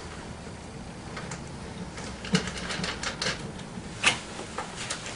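Irregular light clicks and taps of a nut, bolt and hands knocking against the scooter's frame and plastic body while the nut is started by hand on the rear shock mounting bolt. A small cluster of clicks comes a little past halfway, with a sharper click about four seconds in.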